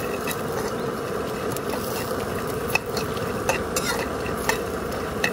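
Metal spatula stirring and scraping peanuts, roasted gram and urad dal frying in oil in a metal pan, with irregular sharp clicks of the spatula against the pan over a steady sizzle.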